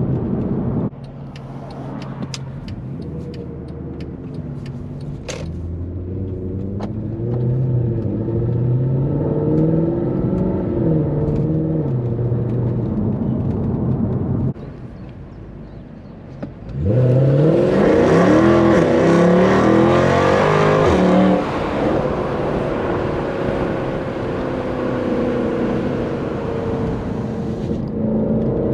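Mercedes C63 AMG's naturally aspirated 6.2-litre M156 V8 being driven hard, its pitch climbing and dropping through gear changes. About halfway through it goes quiet briefly, then surges much louder under full throttle, rising in pitch for about four seconds before the driver lifts off and it settles back to steady running.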